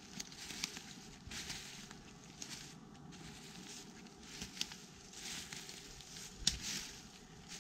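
Rustling and crackling of dry woodland debris (leaves and twigs) being disturbed, in irregular bursts with a few sharp snaps; the loudest snap comes about six and a half seconds in.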